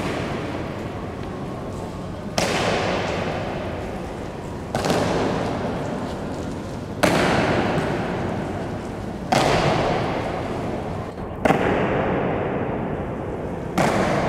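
Boots of an honour guard stamping on a stone floor in a slow ceremonial march, one heavy stamp about every two seconds, each ringing on in a long echo around a large hall.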